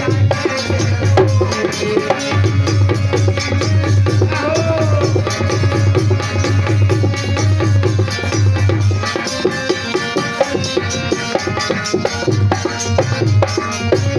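Instrumental passage of Indian devotional folk music: hand drums keep a steady beat under a sustained melody line, with the deep bass pulse dropping out for a few seconds after the middle.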